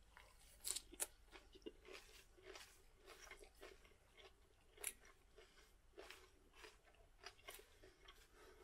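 A person chewing a mouthful of raw dandelion-leaf and young-cabbage salad: faint, irregular crunching.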